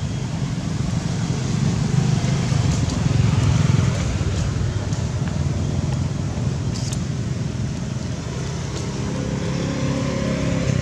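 A motor vehicle's engine running as a steady low rumble, its pitched note growing clearer near the end.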